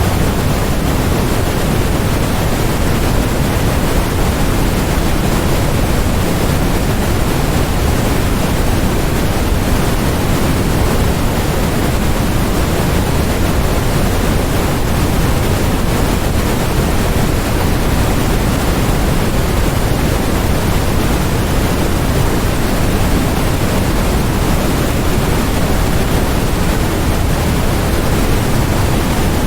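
Steady generated noise, white noise in the title but weighted toward the low end like pink noise: an even, loud hiss with a rumble beneath it that never changes.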